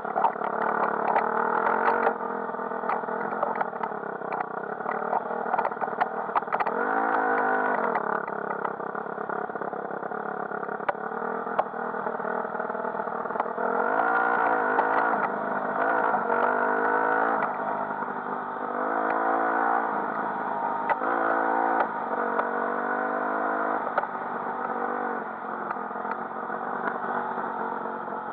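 Enduro dirt bike engine on the move, revving up and easing off again and again, with its pitch climbing on each burst of throttle. Sharp rattling clatter comes from the bike over the rough trail, most of it in the first couple of seconds and around a quarter of the way in.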